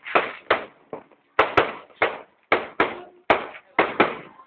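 Fireworks exploding overhead: a rapid string of about ten loud bangs, two or three a second, each dying away quickly.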